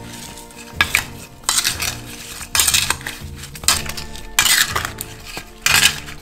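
A wooden spoon stirring and scraping sugar-coated lemon slices in a stainless steel bowl, in short strokes about a second apart. Soft background music plays underneath.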